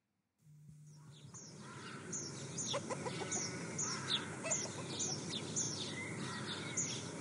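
Cartoon farmyard sound effect: birds chirping in short, repeated downward chirps about twice a second, with chickens clucking, fading in over the first couple of seconds.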